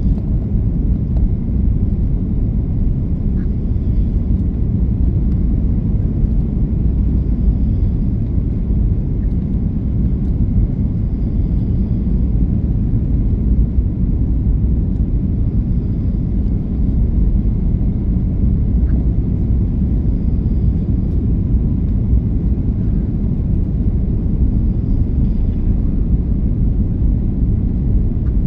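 Inside the cabin of an Airbus A330-200 airliner: the steady low rumble of its engines and the airflow over the fuselage, with a faint steady high tone.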